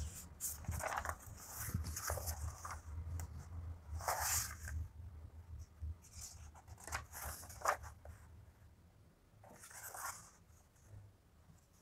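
Paper question-paper booklet pages being turned by hand: a handful of soft, brief rustles and page flips.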